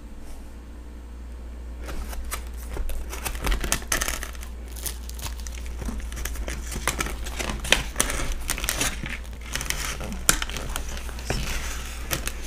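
Crusty sub roll of a steak and cheese sandwich crackling and crinkling as hands squeeze and pull at it, in dense irregular crackles starting about two seconds in. A steady low hum runs underneath.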